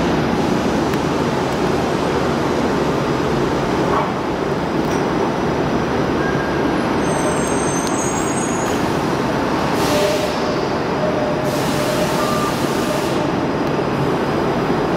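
Steady rumble of transit vehicles in an underground streetcar and bus station, with a Bombardier Flexity streetcar rolling past the platform at the start. Two long hisses of released air come about nine and twelve seconds in.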